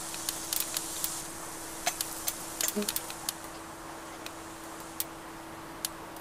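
Soda can fizzing under pressure: scattered, irregular light crackles and clicks over a steady low hum, thinning out after about three seconds.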